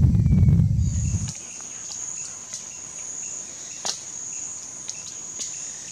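A low rumbling noise cuts off about a second in. Then a steady high-pitched insect trill carries on, with faint short notes repeating about twice a second and an occasional tick.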